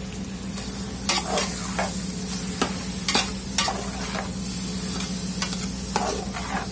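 Cubed beef sizzling in hot butter in a large aluminium pot, while a spoon stirring the meat scrapes and knocks against the pot several times from about a second in. A steady low hum runs underneath.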